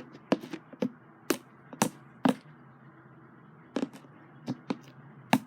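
Slime being squeezed and stretched by hand, giving a series of sharp clicking pops, about one every half second, then a pause and a few more near the end.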